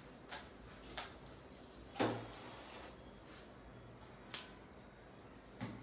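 Five short knocks and clicks, the loudest about two seconds in: plastic food tubs being handled and set down on a granite countertop.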